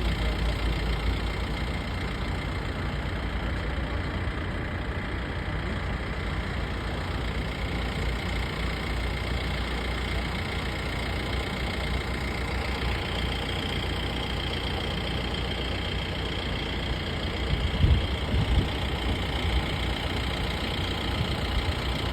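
An engine running steadily with a low, even throb; a steady high whine joins about halfway through, and a few louder knocks come near the end.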